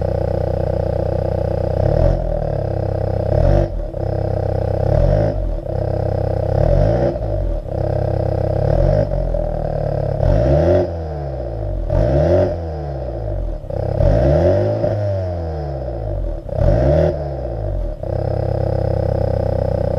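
MINI John Cooper Works turbocharged four-cylinder engine idling steadily through its exhaust, then blipped repeatedly, about every two seconds, each rev rising quickly and falling back to idle, before settling back to a steady idle near the end.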